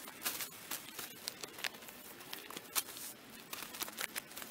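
Spruce boughs rustling and crackling as they are pushed and arranged by hand on a shelter, with many irregular sharp crackles of needles and twigs.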